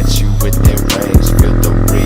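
Electronic music track with a heavy bass line and a steady beat of kick drums and hi-hats.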